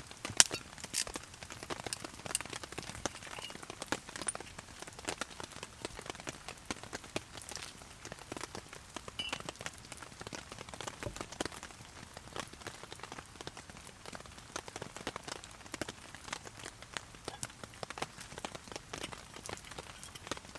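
Heavy rain falling on a tarp: a dense, irregular patter of drop hits over a steady wash of rain.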